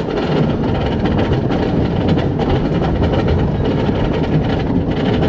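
A vehicle running on rails with a steady, dense rumble.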